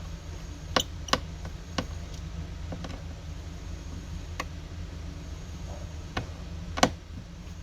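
Irregular small clicks and taps of a precision screwdriver working the screws out of a smartphone's frame, about seven in all with the sharpest near the end, over a steady low hum.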